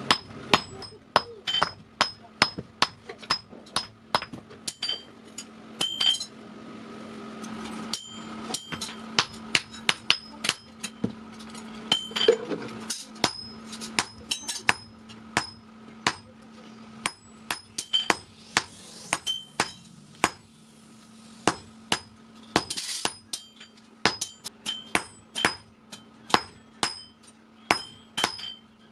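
Hammer blows on hot steel over an anvil, forging an old vehicle axle: a steady series of strikes, about two or three a second, each with a bright metallic ring, over a steady low hum.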